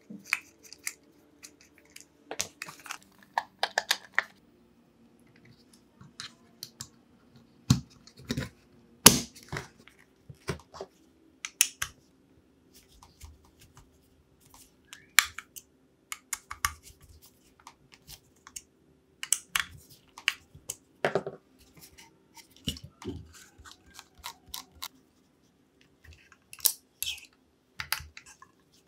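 Hand assembly of a 3D-printed plastic saw housing: a hex-key screwdriver clicking and scraping as it turns small screws, with scattered taps and knocks of plastic parts being handled, over a faint steady hum.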